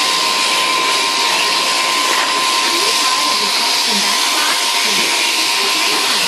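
Sheep-shearing handpiece on its overhead drive running steadily as it cuts through a sheep's fleece, a constant high whine over a steady hiss.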